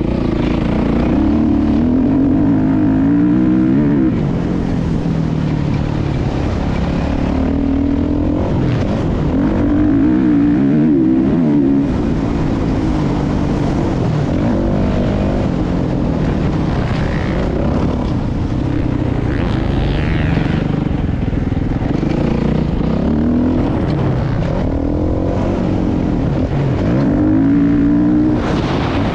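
Motocross bike engine under hard riding, revving up and dropping back again and again as the rider accelerates, shifts and backs off around the dirt track.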